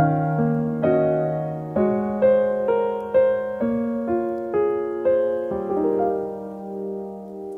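Background piano music: a melody of struck notes at about two a second over held low notes, slowing and fading near the end.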